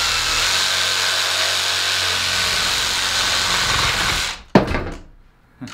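Ryobi cordless reciprocating saw running steadily as it cuts through a branch for about four seconds, then stopping. A single sharp knock follows about half a second later.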